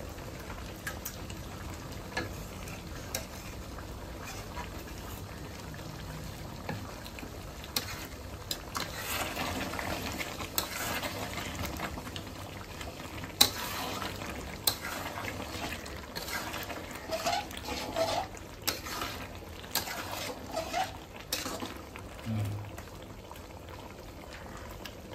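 Spiced curry bubbling in a cooking pan while a spoon stirs it, knocking and scraping against the pan through the middle stretch.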